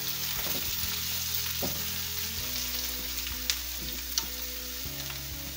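Finely chopped onions sizzling in a frying pan as they are stirred with a silicone spatula, softening and starting to turn translucent. Two short sharp clicks sound about three and a half and four seconds in.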